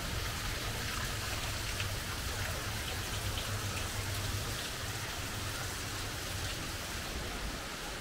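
Steady rushing of flowing water, an even hiss with a low rumble beneath it.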